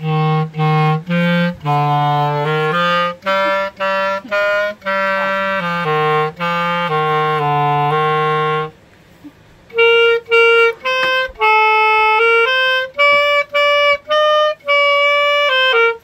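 Clarinet played solo: a melody of short, separate notes, low in the instrument's range for the first eight seconds or so, then after a short break a phrase played higher up.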